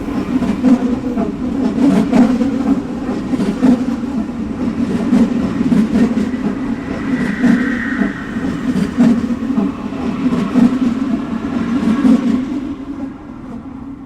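Subway train running on the tracks: a steady low rumble with irregular clacks of the wheels over the rails, a brief higher squeal about halfway through, and the sound fading away near the end.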